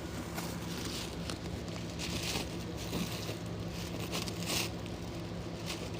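Faint, intermittent crunching and rustling: a small animal chewing on raw vegetables, in several short bouts.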